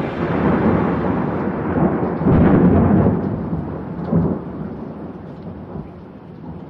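Thunderstorm sound effect: steady rain with a roll of thunder that peaks about two to three seconds in, swells once more briefly, then dies away.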